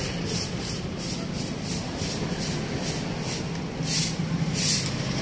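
Bristle broom brushing across a concrete floor in quick strokes, about three a second, with two stronger strokes near the end. A steady low hum, likely the car's engine idling, runs underneath.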